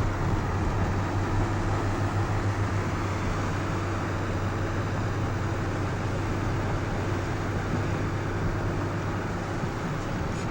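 Steady running noise of a car driving: road and engine noise with a low, even hum.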